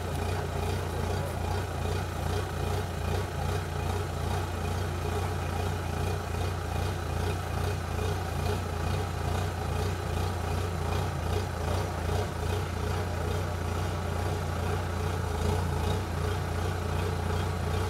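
Heavy farm diesel engine running steadily with an even low throb, the machinery working to drive a combine harvester out of deep mud.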